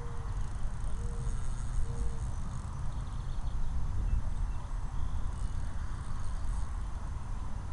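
Wind buffeting the microphone, a rough low rumble that rises and falls unevenly. Three short, slightly falling tones sound about a second apart in the first two seconds.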